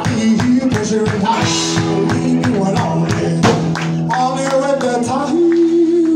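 Live outlaw country-rock band playing: drums, electric and acoustic guitars and bass, with a man singing lead. The drum strokes are dense at first and thin out about four seconds in.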